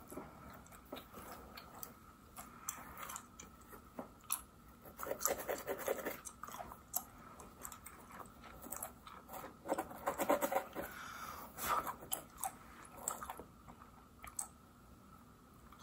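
Close-miked gum chewing with irregular wet smacks and clicks, busier about five and ten seconds in, over the scratching of a rat-tail comb's metal pin and fingernails on a mannequin's hair-covered scalp.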